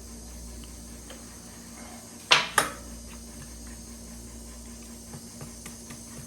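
Two sharp knocks about a quarter second apart, about two seconds in, from the microwave's parts being handled during reassembly, over a steady low hum.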